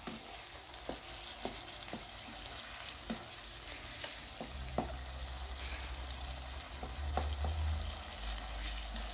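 Potatoes, cauliflower and French beans frying in a metal frying pan while a wooden spoon stirs them, with short irregular knocks of the spoon against the pan about every half second.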